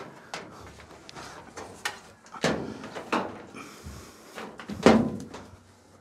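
Knocks and clunks of an Electrolux clothes dryer's cabinet being tipped upright and handled, with a heavier thump about five seconds in.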